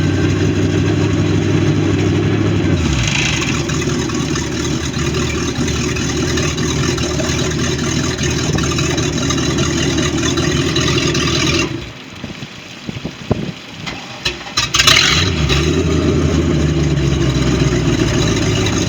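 MerCruiser 5.7-litre V8 marine engine running, speeding up about three seconds in, then shutting off. After a few seconds of clicks it fires again with a short burst and settles back to a steady idle. The engine has a knocking noise.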